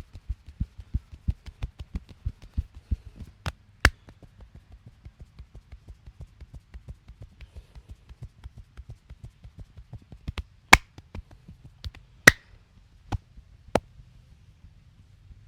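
Hands patting rhythmically in a head and back massage, about three soft thumps a second, growing quieter about four seconds in. Sharp, loud cracks or snaps break in twice around four seconds in, then four or five more in the second half.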